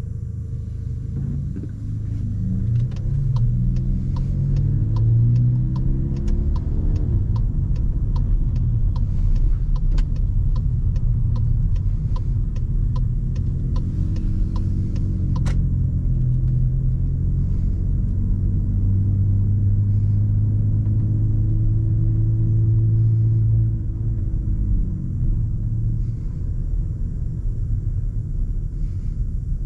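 Car engine and road noise, the engine pulling up through the revs about a second in, then running steadily and easing off a few seconds before the end. For about the first half there is a light regular ticking, about twice a second, like a turn-signal indicator, ending with one sharper click.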